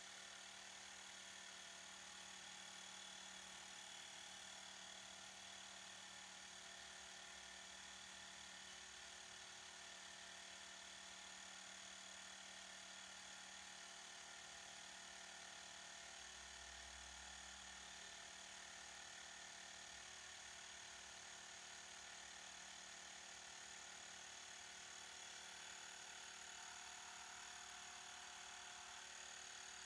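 Mi portable electric air compressor running steadily as it pumps air into a ball through its hose, a constant motor buzz with a high whine. It cuts off suddenly at the very end as it is switched off.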